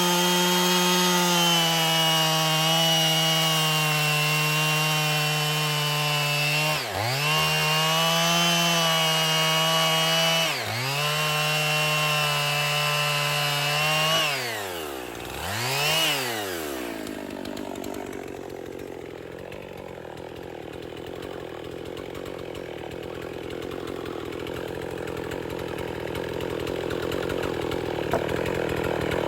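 Husqvarna 55 chainsaw's single-cylinder two-stroke engine held at high revs, its pitch dipping sharply and recovering twice, then revving down and up twice more before it settles to a much quieter low idle about two-thirds of the way through.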